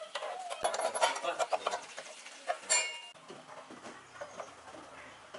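Metal clinking and scraping as a T-handle wrench works the bolts of a moped's steel front carrier, with one sharp ringing clink about two and a half seconds in.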